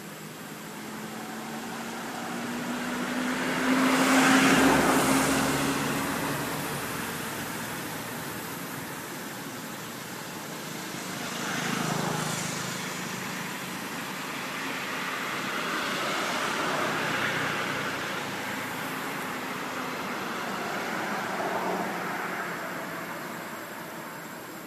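Road vehicles passing one after another, each a slow swell of tyre and engine noise that rises and fades over a few seconds; the loudest pass is about four seconds in, with three weaker ones later.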